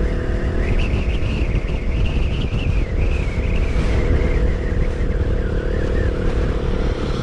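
KTM Duke 200 single-cylinder engine running at a steady cruise under way, under a heavy low rumble of wind on the microphone, with a high whine that wavers up and down in pitch.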